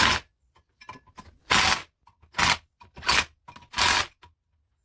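Cordless drill-driver run in short trigger bursts, about four, tightening the screws that hold a brake disc onto a Land Rover Defender hub.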